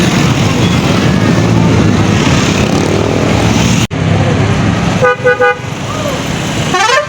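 Traffic and engine noise, then a tour bus's Basuri telolet musical horn: three short toots about five seconds in, followed near the end by a quick rising run of notes.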